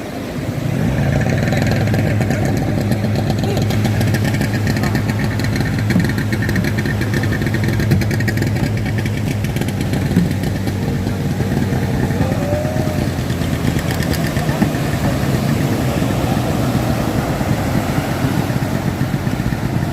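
An engine running steadily, growing louder about a second in and then holding an even, low drone.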